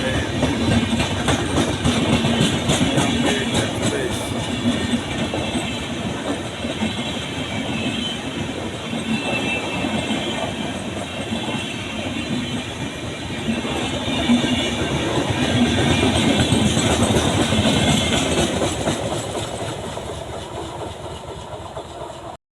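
Indian express train running past close by, its coaches' wheels clattering steadily over the rail joints. It fades somewhat over the last few seconds.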